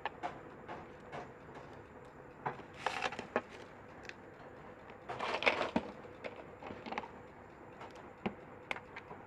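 Light clicks and taps of a phone and its parts being handled on a bench while a replacement display is fitted. Two brief rustling, scraping bursts come about three seconds in and about five and a half seconds in; the second is the loudest.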